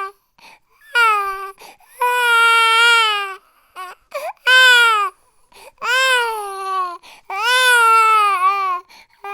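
Baby crying: five wails, each about a second long, with a short gasping breath between them.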